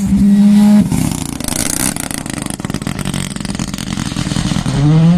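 Rally car engine at high revs that lifts off about a second in. A rapid run of crackles follows, then the revs climb again near the end as it accelerates.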